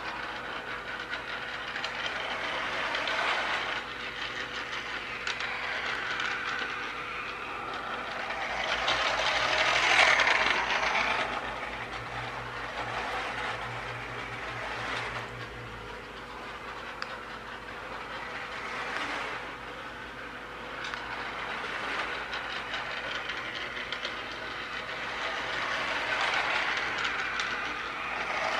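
Battery-powered toy rail vehicles, a small van and jeep, running around a circle of O-gauge track, their little motors whirring and wheels rolling on the rails. The sound swells and fades as they come close and move away round the loop, loudest about a third of the way through.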